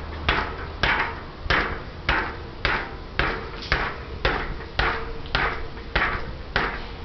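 Regular sharp knocks on a bicycle wheel and tyre, about two a second, as the tyre is worked over to keep the inner tube from creasing.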